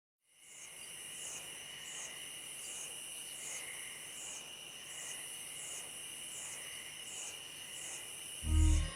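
Insect chorus, a high chirring that pulses a little more than once a second over a steady, lower insect whine, fading in at the start. A short, deep boom comes near the end.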